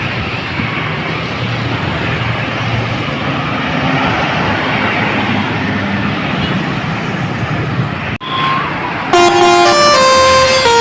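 Steady traffic and engine noise for about eight seconds. Then, after a cut, a bus's multi-tone 'telolet' air horn plays a loud melody of stepped notes, rising and falling.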